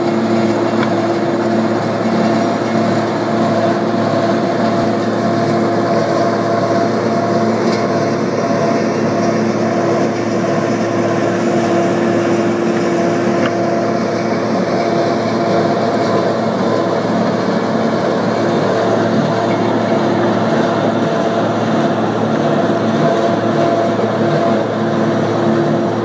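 Bucket-wheel excavator running: a steady machine drone with several constant tones from its drives and gearing while the wheel works the face.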